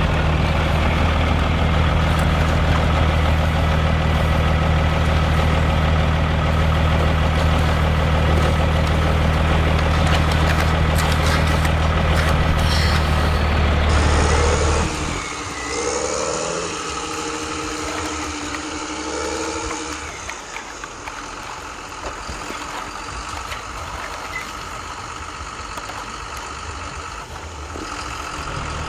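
Truck engine running as a steady low drone for about fifteen seconds, then a sudden change to a quieter passage with lighter engine noise and a few short tones.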